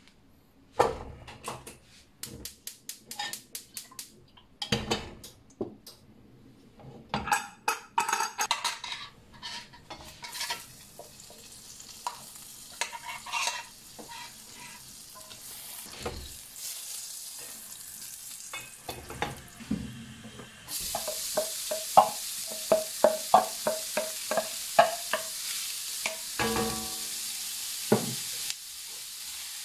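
Knocks and clatter of metal cookware, then butter sizzling faintly in a black steel frying pan. About two-thirds of the way through, the sizzle turns suddenly louder as diced onion and mushrooms go in, with a quick run of wooden-spatula taps and scrapes against the pan.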